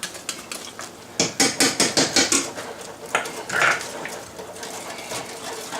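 A whisk knocking and clicking against the pot as roux is whisked into thick soup, in a quick run of strikes about four or five a second from about a second in, then more scattered taps.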